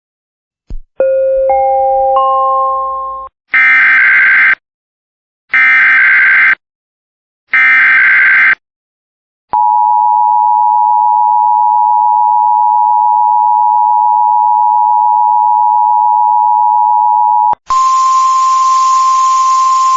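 Emergency Alert System tone sequence: a click, a three-note rising chime, then three one-second bursts of SAME header data about two seconds apart, followed by the steady two-tone attention signal for about eight seconds. Near the end it switches to a single steady tone over radio hiss, like a NOAA Weather Radio alert tone, before the voice message.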